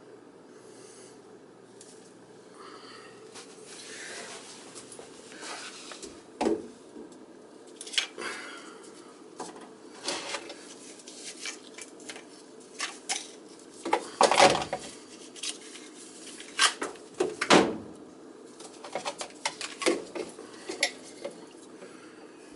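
White PVC drain pipe and plastic fittings being handled and fitted together: an irregular string of clicks, knocks and clatter, loudest a little past the middle.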